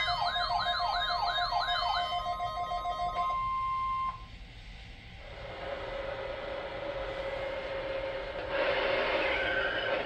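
Several weather alert radios sounding their alarms together: warbling siren sweeps and repeated beeps, over the steady 1050 Hz NOAA Weather Radio alert tone of a weekly test. The warbling and beeping stop about two to three seconds in, the steady tone cuts off about four seconds in, and a quieter stretch of radio hiss with a faint steady tone follows.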